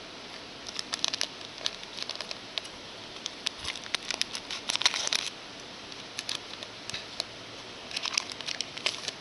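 Trading cards being handled and flipped through by hand: bunches of light clicks and crinkly rustles, busiest near the middle and again near the end.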